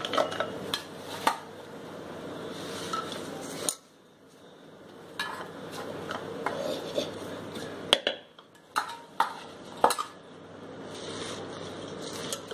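Chopped mustard leaves being put into a steel pressure cooker: a soft rustle with scattered sharp clinks and knocks of metal. The sound cuts off suddenly a little before four seconds in, then resumes.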